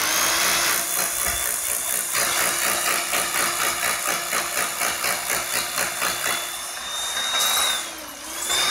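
Corded hammer drill boring an anchor-screw hole, the motor whining steadily under a fast hammering pulse. Near the end the motor pitch sags briefly and then picks back up.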